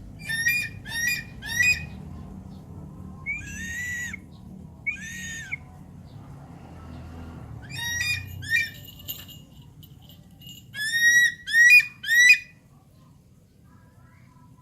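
Javan pond heron calling: about eleven short, harsh squawks in quick clusters of two or three, each a brief arched note, over a faint low rumble.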